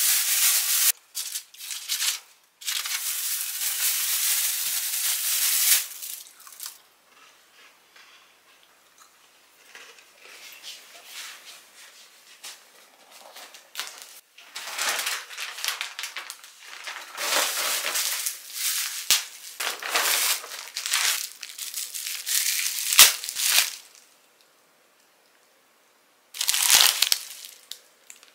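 Plastic packaging crinkling and rustling in irregular bursts as it is handled: a plastic bag at first, later bubble wrap and plastic film pulled off newly unboxed plates. A loud burst of crinkling comes near the end, and a few light knocks fall in the second half.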